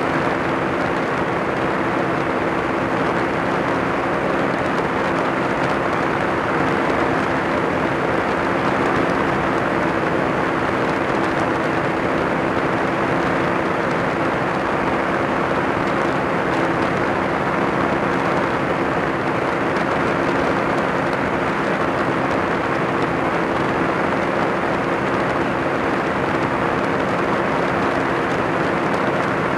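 Kolb ultralight aircraft's pusher engine running at a steady cruise drone, mixed with a strong rush of wind over the wing-mounted camera.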